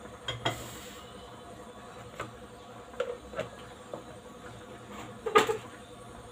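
Kitchenware clinks and knocks: a metal spoon and glass lid striking a bowl and cooking pot, about seven separate knocks with the loudest a little over five seconds in.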